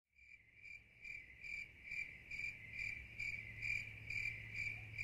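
Crickets chirping steadily, about two chirps a second, starting abruptly.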